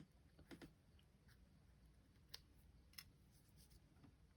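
Near silence with a few faint, short clicks and taps from handling a clogged glitter glue bottle.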